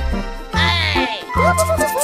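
Upbeat children's background music with a regular bass beat, held notes and cartoon-like sliding sound effects, including a swooping tone about half a second in.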